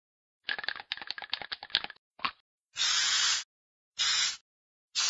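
A quick run of sharp clicks lasting about a second and a half, then three separate bursts of hissing noise, the last about a second long.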